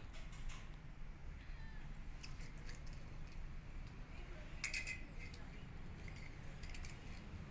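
A cat's short, high mew about two-thirds of the way in, with a few faint clicks before it, over a steady low rumble.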